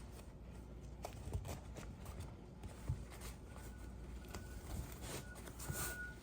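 Faint handling noise from a motorcycle seat being worked on by hand: a few light, scattered knocks and rubs. A thin high tone comes and goes in the second half.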